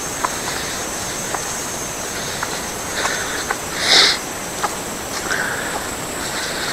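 Outdoor ambience: a steady high-pitched insect drone over a noisy background, with scattered faint clicks and one brief louder burst about four seconds in.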